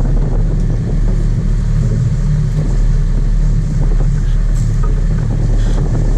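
Sport-fishing boat's engine running at a steady trolling speed: a loud, even, low drone.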